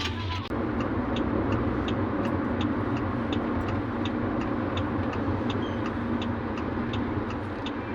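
Car running, heard from inside the cabin: a steady low engine and road hum, with a light, even ticking of about three ticks a second.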